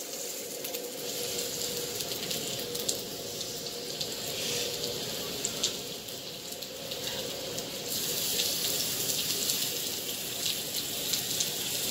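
Stuffed chicken breasts sizzling in a cast iron pan as they are laid in to sear: a steady hiss with scattered crackles. The pan is not as hot as it should be, so the sizzle is fairly mild.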